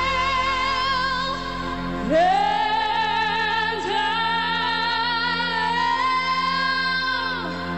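Singing with music: a young singer's voice sweeps up into a long high note about two seconds in, holds it with vibrato, and lets it fall away near the end, over sustained accompaniment.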